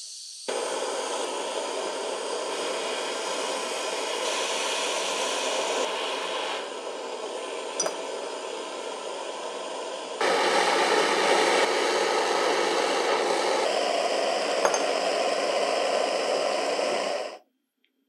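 Handheld gas-cartridge blowtorch opened and lit: a short hiss of escaping gas, then the flame catches and burns with a steady rushing hiss. It steps a little quieter about six seconds in and louder again about ten seconds in, then cuts off abruptly near the end.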